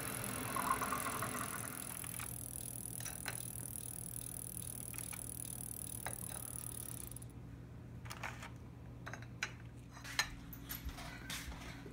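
Keurig coffee maker brewing: a steady hiss over a low hum, loudest about a second in, the hiss stopping about seven seconds in. Then light clicks and clinks as a plate of bread and macarons is handled on a countertop.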